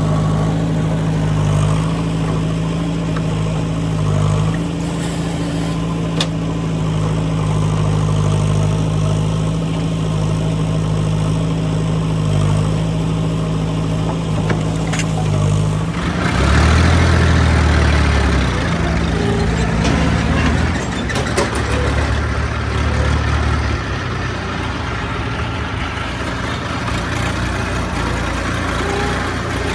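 Heavy diesel engine running steadily. About halfway through the sound changes abruptly to a lower, rougher engine note with more rumble and clatter.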